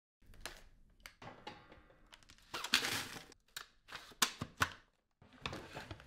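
Hard plastic clicks and knocks from handling a Dyson V15s Detect Submarine cordless stick vacuum, switched off. There is a short rustling burst about three seconds in and a quick run of clicks near the end.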